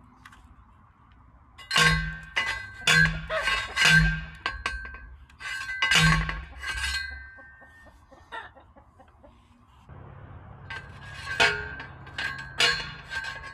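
Manual post driver clanging down onto a steel T-post, metal on metal, each strike ringing. A quick run of about six blows comes about two seconds in, a single blow follows, and a quieter series starts near the end.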